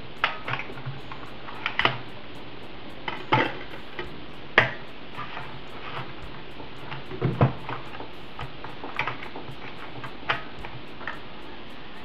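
Hands handling things at a laptop: scattered, irregular light clicks and clatters, with a duller knock about seven seconds in.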